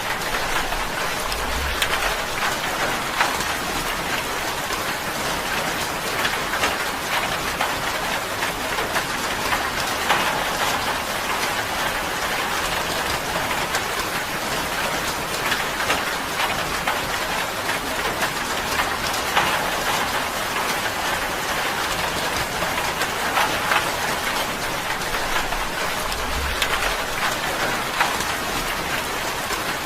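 Steady rain drumming on a tin roof, a dense patter of drops. A brief low rumble sounds twice, about two seconds in and near the end.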